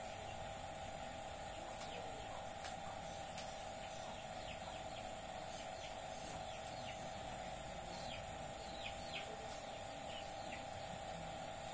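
Birds chirping now and then in short, falling chirps over a steady hum.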